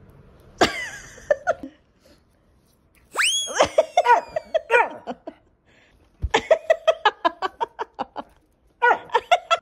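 A woman laughing hard in spells of quick, rhythmic bursts, breaking into a high squeal about three seconds in. A short, sharp, loud sound comes just before, about half a second in.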